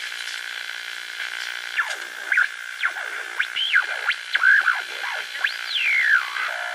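Eerie electronic Halloween music: swooping synthesizer tones that glide down and up in pitch over a steady high drone.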